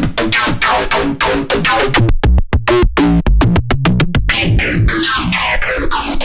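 Aggressive distorted synthesizer riff from an industrial-metal Serum 2 preset, rapid repeated staccato notes over heavy low hits, with a downward filter sweep through the last couple of seconds.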